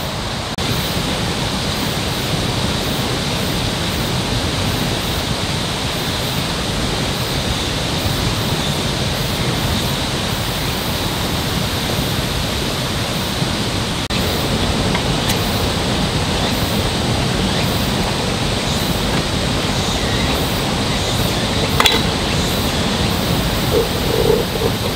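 Steady, even rushing outdoor ambience, with a single sharp click about three seconds before the end.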